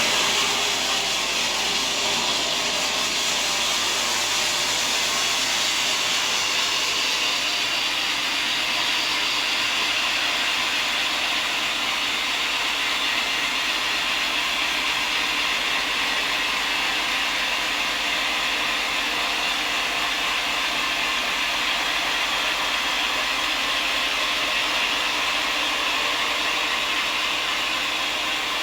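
Excavator-mounted rock saw cutting through rock: a steady, unbroken hiss-like grinding noise.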